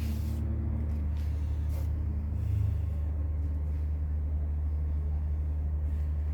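Steady low electrical-sounding hum, with a few faint ticks.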